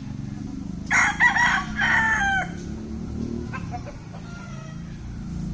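A rooster crowing once, starting about a second in and lasting about a second and a half, in several linked phrases. A steady low rumble runs underneath.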